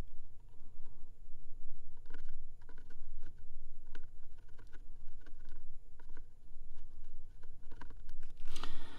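Faint, scattered small clicks and ticks of metal tweezers and a soldering iron tip against a fine wire and a tiny surface-mount capacitor on a laptop motherboard, over a low steady hum. A short hiss comes near the end.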